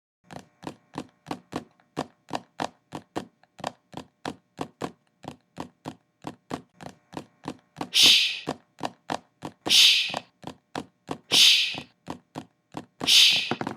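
Recorded knocks and taps arranged into an even rhythm, about four a second. From about eight seconds in, four louder hissing bursts join the beat, one roughly every two seconds.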